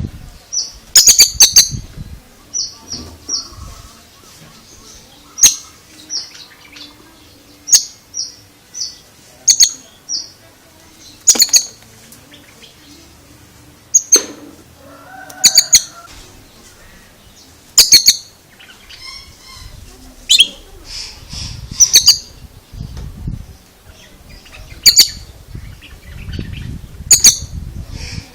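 Oriental magpie-robin calling: loud sharp clicks every second or two, mixed with strings of short high chirps.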